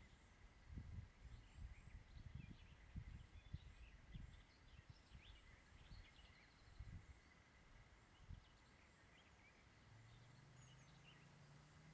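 Faint outdoor ambience: distant birds chirping now and then, with irregular low rumbles of wind on the microphone. A faint low hum sets in near the end.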